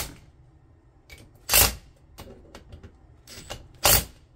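Cordless driver running in three short bursts about two seconds apart, lightly snugging the bolts that join the two halves of a 4L60E transmission pump before they are torqued.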